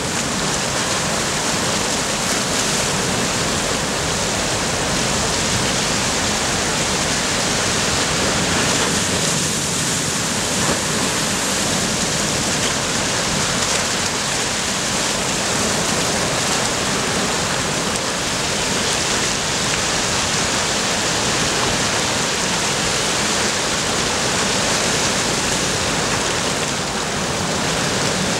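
Sea surf washing against a rocky shore: a steady, even hiss of small breaking waves.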